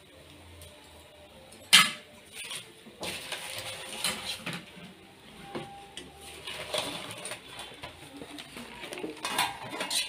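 Wire-mesh spider strainer knocking and scraping against a steel kadai while fried thattai drain over the oil: one sharp clink about two seconds in, then spells of softer metal scraping and rattling.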